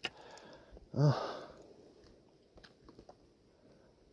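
A man's short wordless voice sound about a second in. A few faint clicks follow as a fishing lure's hook is worked out of a bass's mouth by hand.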